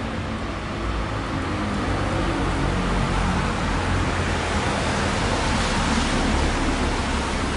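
Steady wash of road traffic noise, growing a little louder over the first few seconds.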